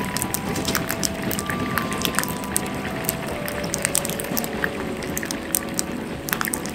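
Wood fire crackling in a small metal fire pit: a dense, irregular run of sharp pops and snaps over a steady hiss.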